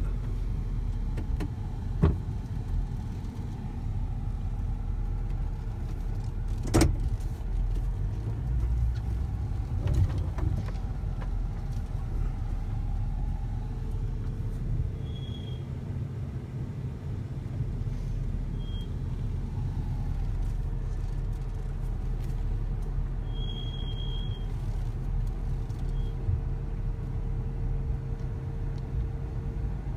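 A van's engine and tyres rumble steadily from inside the cabin as it rolls slowly along a street. A few sharp knocks come in the first ten seconds or so, and a few short high chirps later on.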